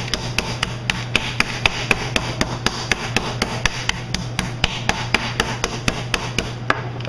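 Chicken breast being pounded flat between sheets of wax paper on a wooden butcher block: rapid, even strikes about four a second, stopping shortly before the end.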